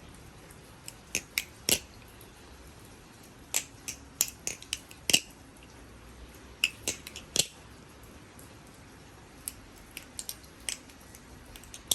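TheOne Kraken clone balisong (butterfly knife) being flipped: sharp metallic clicks and clacks as the handles and blade snap open and closed, in short bursts of a few clicks with pauses between.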